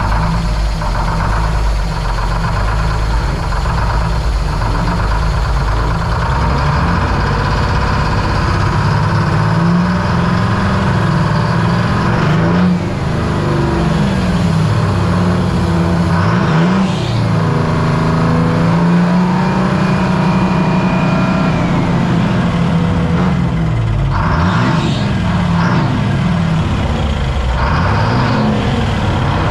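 A semi truck's diesel engine is revved hard again and again, very loud, its pitch dipping and climbing back with each rev. It is being run up to show how loud it is.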